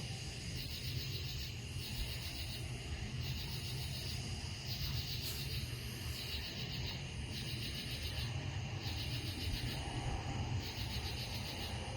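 Night insects calling: high-pitched pulsing trills that come in repeated bursts, over a steady low rumble.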